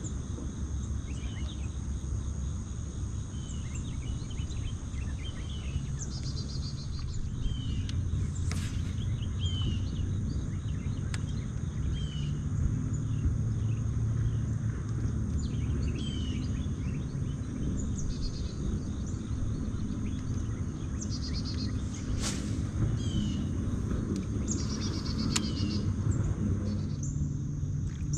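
Lakeside morning ambience: birds chirping in short, repeated calls, over a steady low rumble and a thin steady high drone, with a few sharp clicks.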